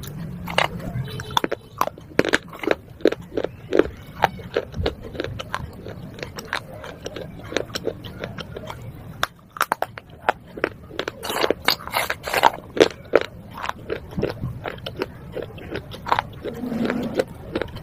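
Broken baked-clay pot pieces being bitten and chewed: a long run of sharp, brittle crunches. A short lull comes about nine seconds in, and the crunching is thickest from about eleven to thirteen seconds in.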